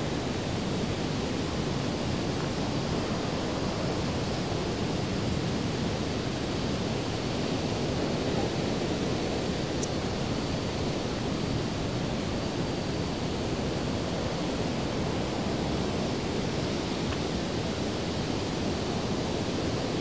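Steady rush of a waterfall, its water running high and overflowing after heavy rain.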